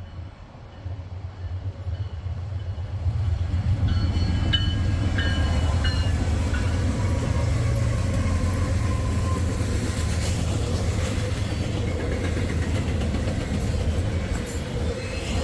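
Norfolk Southern freight train approaching and rolling past: a heavy rumble that builds over the first three or four seconds, then holds steady as the train goes by, with some clickety-clack of the wheels.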